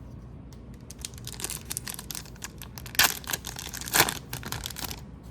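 Trading cards and their foil pack wrapper being handled: crinkling and rustling that starts about a second in, with two louder sharp crinkles about three and four seconds in.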